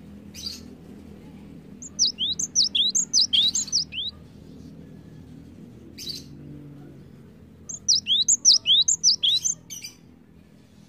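Cinereous tit (gelatik batu) singing two bouts of rapid, repeated whistled notes that sweep up and down, about four notes a second. Each bout lasts about two seconds: the first starts about two seconds in, the second about eight seconds in. A few short sharp clicks fall between the bouts.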